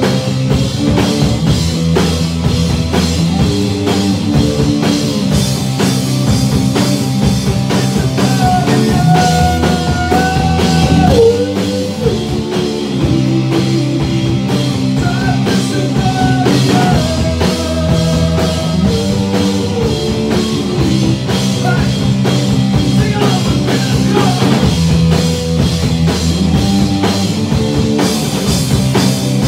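A rock band playing live: electric bass, electric guitar and a Pearl drum kit, loud and steady throughout, with a higher melody line over the middle stretch.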